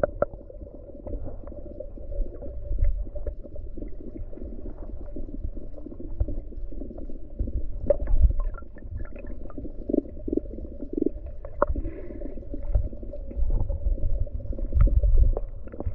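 Muffled water sound from a microphone underwater beside rocks: a low, surging rumble of moving seawater, with scattered small clicks and knocks.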